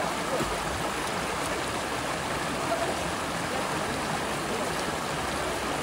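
Shallow river water rushing and splashing steadily over a stony bed.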